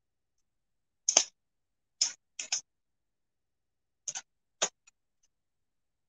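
Pruning shears cutting through a small apple-tree branch: about six short, sharp snips and cracks at uneven intervals.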